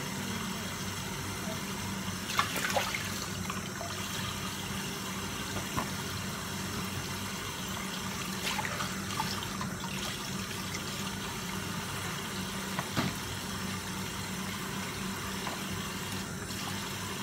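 Kitchen tap running steadily into a sink, with a few sharp knocks and clicks as a knife and chicken wings are handled in it.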